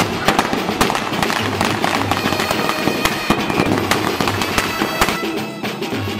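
Firecrackers going off in a rapid, dense series of sharp bangs over background music. The cracking stops about five seconds in and the music carries on.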